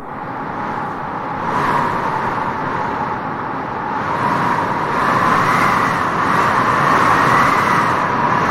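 Strong wind blowing steadily across open grassland, a rushing hiss that swells about a second and a half in and again from about five seconds on.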